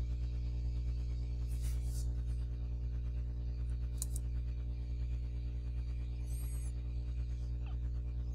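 Steady electrical hum with a buzz of its overtones, and a few faint computer clicks about two and four seconds in.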